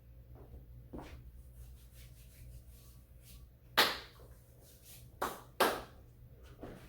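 Three sharp hand slaps: one about four seconds in, then two in quick succession about a second and a half later.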